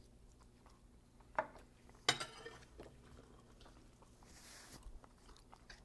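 Fork and plate clinking as food is picked up: two light clinks about a second and a half and two seconds in, then a few faint taps.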